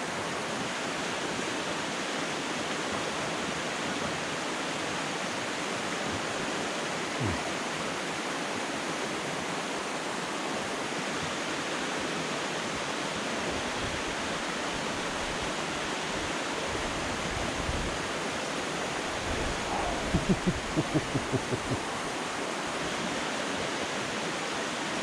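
Waterfall on a creek, the falling water making a steady rushing noise. About twenty seconds in, a short run of quick repeated pitched pulses sounds over it.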